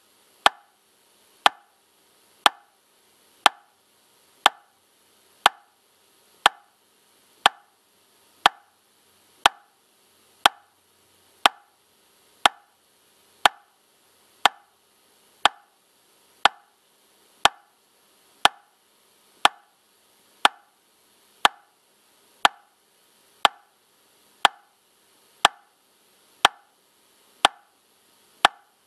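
Metronome clicking steadily at 60 beats per minute, one sharp click every second, all at the same level with no accented beat.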